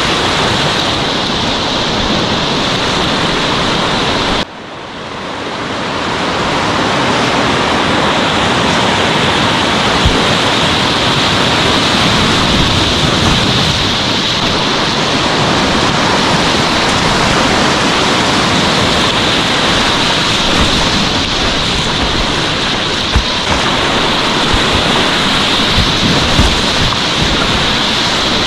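Whitewater rapid rushing in a steady loud wash of water. The sound drops abruptly about four seconds in and swells back over the next two seconds.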